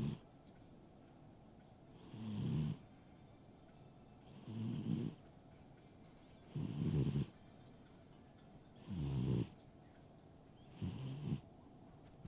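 An old pet snoring in its sleep: a rough snore about every two seconds, each lasting under a second, in a slow, even rhythm.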